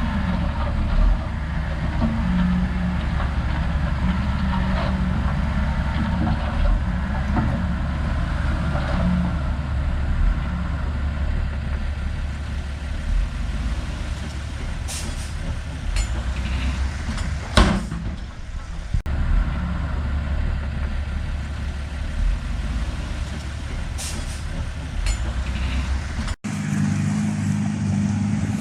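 Heavy diesel engine of working machinery running steadily, with a few sharp knocks around the middle. Near the end it cuts off abruptly and a different engine sound takes over.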